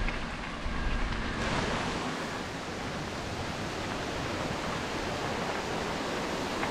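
Steady rush of a small mountain stream and waterfall, swelling about a second and a half in and then holding even.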